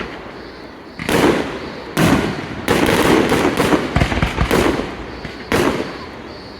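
Fireworks going off: a series of sharp bangs, about four or five, with dense crackling between them for a couple of seconds in the middle.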